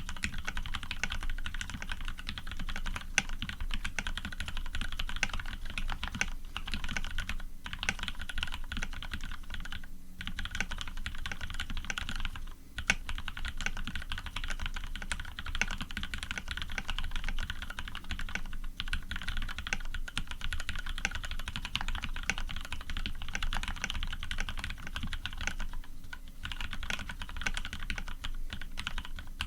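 Continuous typing on a custom mechanical keyboard with lubed Cherry Retooled Black linear switches, an aluminium plate and PBT keycaps: a dense run of keystrokes with a few brief pauses.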